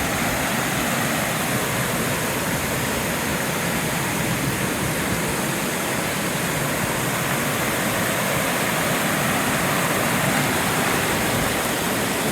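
Steady rush of a waterfall crashing into a gorge, an even roar of falling water.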